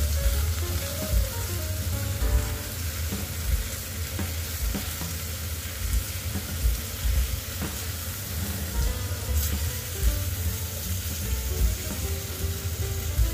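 Chicken pieces sizzling as they fry in a pot, stirred with a silicone spatula that knocks softly and irregularly against the pot.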